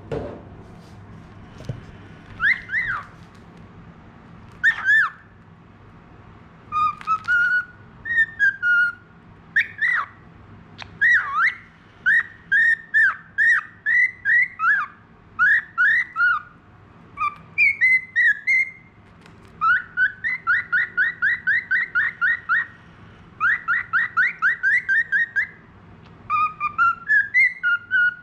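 Budgerigar whistling a string of clear swooping and sliding notes, with two quick runs of repeated notes at about five a second in the second half. A steady low hum sits underneath.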